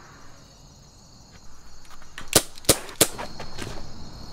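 Three gunshots in quick succession, about a third of a second apart.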